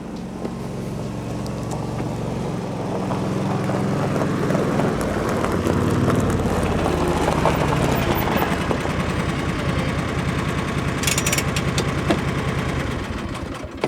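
An engine running steadily with a low hum, growing louder over the first several seconds.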